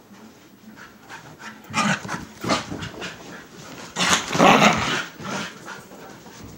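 Siberian husky vocalizing in several short, rough bursts, the longest and loudest lasting about a second, starting about four seconds in.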